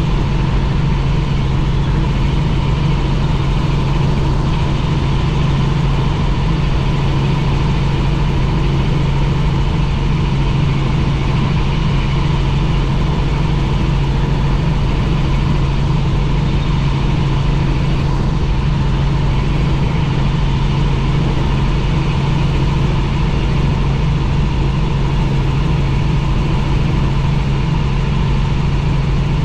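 Helicopter engine and rotor noise, a loud, steady drone with a strong low hum that does not change.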